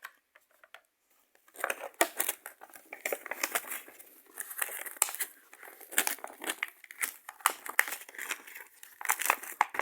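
Plastic packaging being handled, crinkling and crackling with many sharp clicks, starting about a second and a half in.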